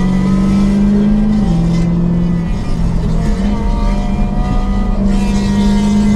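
Supercar exhausts from a Ferrari 360 Spider and a straight-piped Porsche 911 GT3 RS cruising in convoy: a steady engine note that dips in pitch about a second and a half in and comes back up about three and a half seconds in, over road and wind noise.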